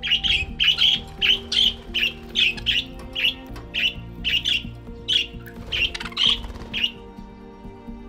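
Budgies chirping and squawking in a quick run of short calls, two to three a second, over background music; the calls stop shortly before the end.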